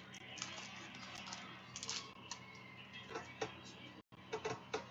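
Faint, irregular light clicks and taps, with the sound cutting out for a split second about four seconds in.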